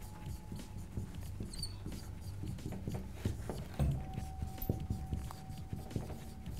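Dry-erase marker squeaking and scratching across a whiteboard as capital letters are written, stroke by stroke, with a low room hum underneath.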